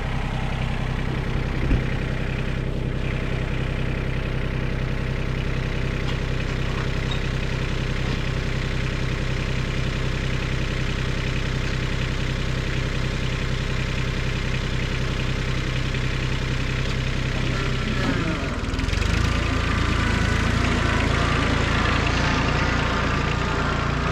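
Kubota B20 backhoe's diesel engine running steadily at idle. About eighteen seconds in, the engine note changes and it runs a little louder and harsher.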